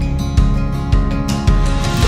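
Background music with plucked guitar notes about every half second.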